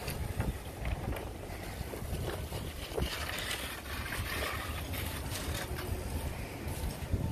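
Wind buffeting the microphone: an uneven low rumble, with faint scattered clicks.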